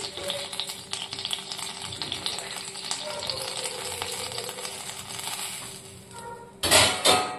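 A bead of water sizzling and crackling in an empty iron kadhai heating on a gas burner, dying away as it boils off after about five or six seconds. Near the end come two loud, short bursts of noise.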